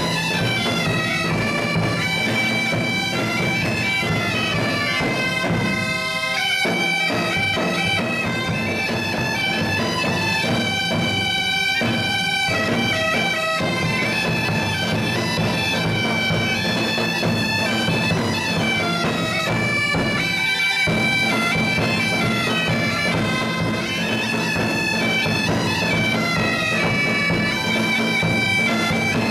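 Several Iberian bagpipes (gaitas de foles) playing a tune together over a steady drone.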